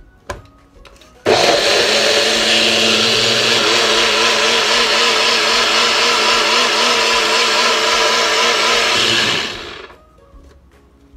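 NutriBullet personal blender running, puréeing garlic cloves and chilies. It starts abruptly a little over a second in, runs steadily with a slightly wavering pitch for about eight seconds, and winds down near the end.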